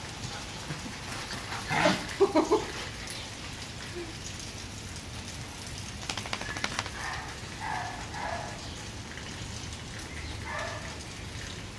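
Two dogs playing, a small one and a larger one, over a steady background hiss. About two seconds in comes a quick cluster of four loud vocal bursts. Around six seconds there is a brief rapid rattle of clicks, followed by a few short yips.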